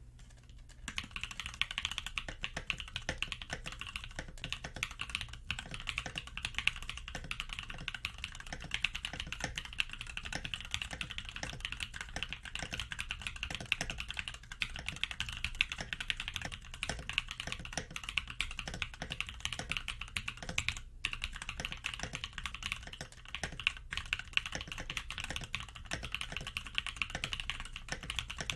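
Continuous typing on a Gentoo 65% custom mechanical keyboard with Gateron Baby Raccoon linear switches on an aluminium plate and Gateron Ink V2 stabilizers: a dense run of keystroke clacks that starts about a second in.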